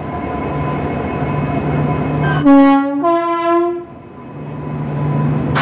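Train horn sounding two blasts in quick succession, a lower note then a higher note, each about half a second long. A steady low hum and crowd noise run underneath.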